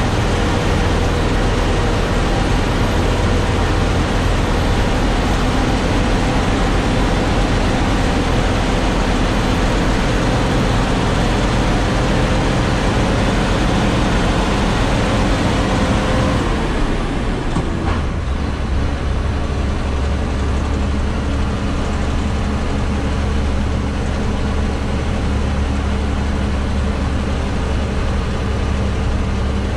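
Heavy truck's diesel engine running steadily as heard from inside the cab. About 17 seconds in the engine note falls and the sound settles into a deeper, heavier hum.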